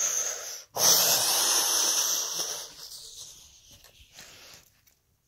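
A breathy hissing whoosh made with the mouth, a flying sound effect for a toy: a short one at the start, then a longer, louder one about a second in that fades out over the next few seconds.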